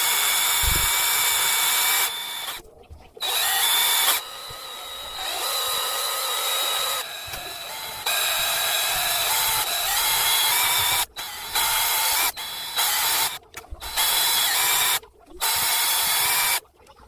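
Small electric drill whining as it bores a hole through a phone's back casing. It runs in stretches that stop and start several times, with brief quiet gaps between them.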